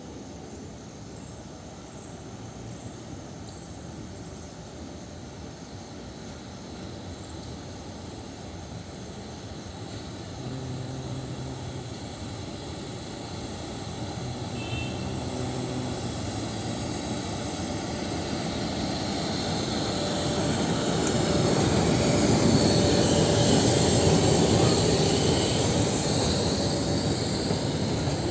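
WDG3A diesel-electric locomotive with its 16-cylinder ALCO engine running under power as it pulls away and approaches, its steady engine note growing louder and peaking about 22 seconds in.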